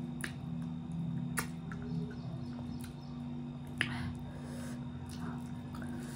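Close-up eating sounds of someone chewing rice and fish curry eaten by hand: scattered wet mouth clicks and smacks, the sharpest just before four seconds in, over a steady low hum.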